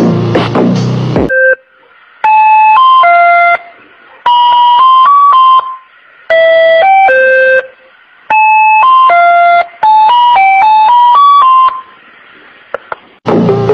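A simple electronic tune of bright, beep-like notes, played in five short phrases of a few notes each with brief gaps between. In the first second, a man's voice over background music cuts off.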